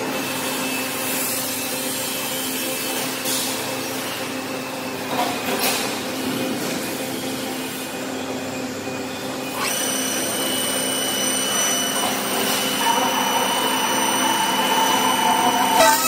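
Roll-forming line for steel channel cable tray running with a steady hum, its circular cold-cut saw working on the formed channel. About ten seconds in, a higher whine joins and the noise grows louder toward the end.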